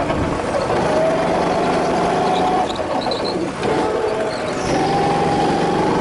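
Go-kart engine running at speed, heard from on board the kart. Its pitch falls away about halfway through, then climbs back up.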